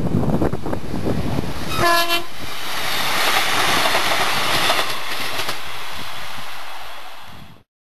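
A Northern Class 156 diesel multiple unit gives one short horn blast about two seconds in, then passes close by with a steady rushing of wheels on rail. Wind buffets the microphone before the horn. The sound cuts off abruptly near the end.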